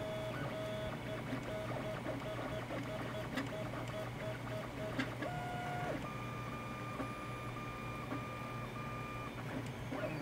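3D printer printing: its stepper motors sing in steady tones that step to new pitches as the print head changes moves, higher from about six seconds in, over a steady low hum, with a few light clicks.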